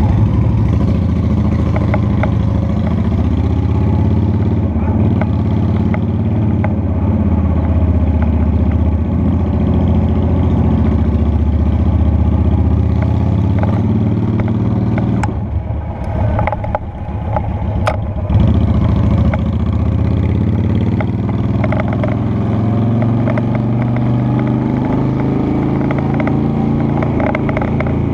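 Honda Shadow Spirit 750's V-twin engine running steadily while riding. Its sound drops for about three seconds a little past the middle, then picks up again.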